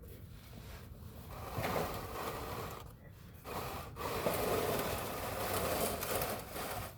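A person breathing audibly, with two long, noisy breaths.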